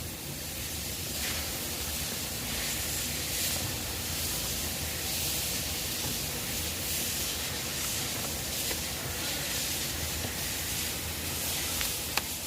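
Steady hissing background noise with a low hum underneath, and a single sharp click about a second before the end.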